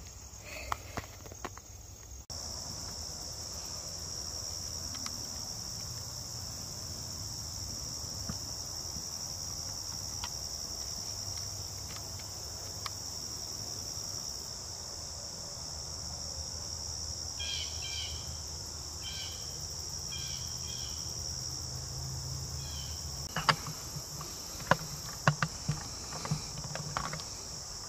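Steady, high-pitched chorus of insects in summer woodland. Near the end, several sharp clicks or crackles.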